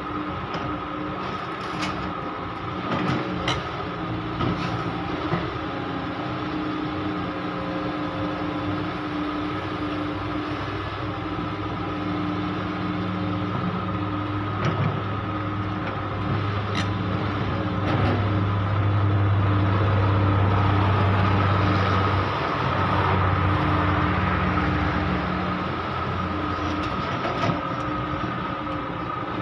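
Caterpillar 320D hydraulic excavator's diesel engine running steadily as the machine loads soil into a dump truck, with a few sharp knocks of soil and clods striking the truck bed. The engine grows louder for a few seconds about two-thirds of the way through.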